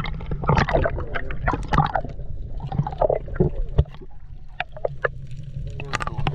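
Water sloshing, splashing and bubbling around a camera held at the sea surface as it dips in and out of the water, with a steady low rumble and many short irregular crackles.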